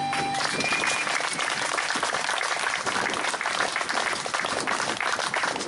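Audience clapping and applauding as a song ends, the final acoustic guitar chord dying away in the first half-second.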